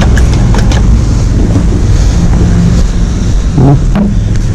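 Wind buffeting the camera microphone, a steady low rumble, with a few faint clicks in the first second.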